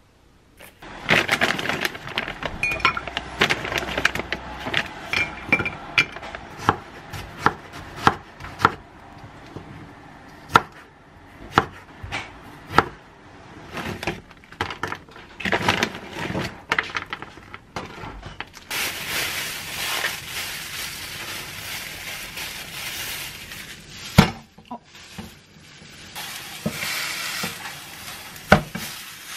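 Kitchen knife cutting tomatoes on a wooden cutting board: a run of irregular knocks. About two-thirds of the way through this gives way to a steady sizzle as frozen sliced meat fries in a hot pan, with a couple of sharp clacks from the tongs against the pan.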